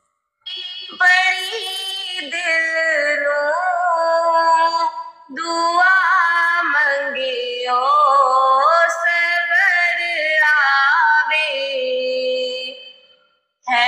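A woman singing a Punjabi naat, a devotional song in praise of the Prophet, with no instruments heard. She sings in long phrases with ornamented, sliding melodies, with a short break about five seconds in and another near the end.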